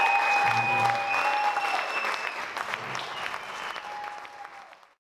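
Audience applauding, with a few long held whistles over the clapping; the applause thins and fades out near the end.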